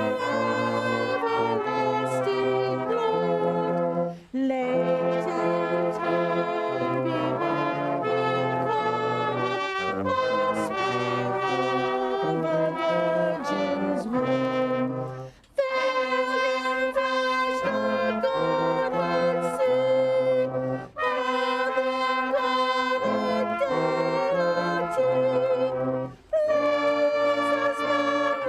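Brass band playing a carol in held chords, with short breaks between phrases about four seconds in, halfway through, and twice near the end.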